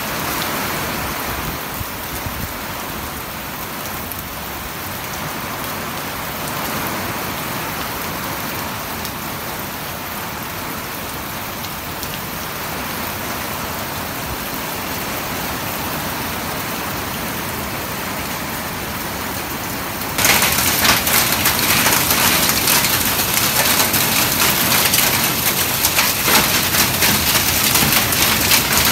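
Heavy rain pouring steadily. About twenty seconds in it abruptly grows much louder and crisper, becoming a dense patter of drops.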